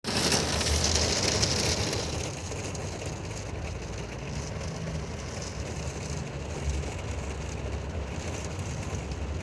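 Heavy rain falling steadily, a dense even hiss that is louder for the first two seconds and then settles to a slightly softer, steady downpour.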